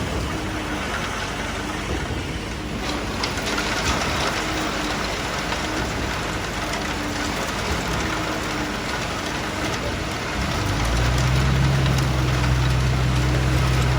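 Engine of concrete-pouring machinery running under a steady rushing noise. About ten seconds in, a deep steady engine drone comes in and gets louder.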